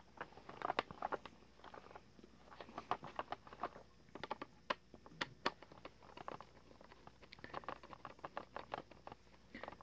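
Screwdriver clicking and scraping on a screw in the hard plastic back housing of a Gemmy Rock-a-Long Santa animatronic, a run of small irregular clicks. The screw is not catching because the back cover is not lined up.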